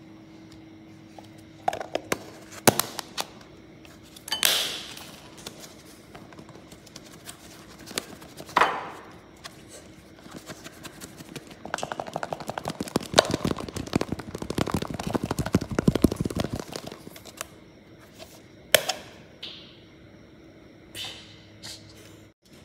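Sausages and sauce shaken hard in a lidded plastic cup: a fast rattle of knocks against the plastic for about five seconds, loudest in the middle of the stretch. Before it come scattered clicks and taps of the plastic cup and lid being handled.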